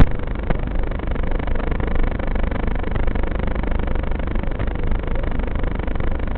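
Steady rushing wind noise, heavy and rumbling in the lows, buffeting the microphone of a fast-flying FPV drone.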